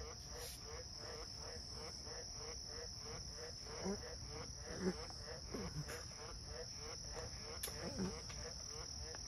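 Insects chirping steadily, about three chirps a second, over a continuous high buzz. A few short, low sounds break in near the middle; the loudest comes about five seconds in.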